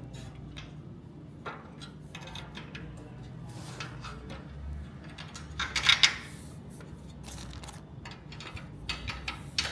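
Metal clicks and clinks of coach bolts and nuts being handled and fitted through aluminium roof-rack panels, with a louder rattling cluster about six seconds in and a few more clicks near the end.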